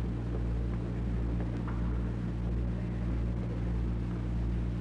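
Steady low hum with several evenly spaced pitches and a faint hiss over it, unchanging throughout: the background noise of an old 1960s live recording between announcements.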